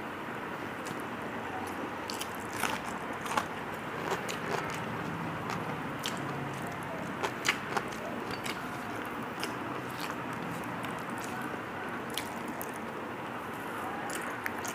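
Close-miked sounds of a person eating rice and vegetables with the fingers: chewing and mouth smacks, with soft squishing as the rice is mixed on a steel plate. Sharp little clicks come now and then, most clustered in the first half.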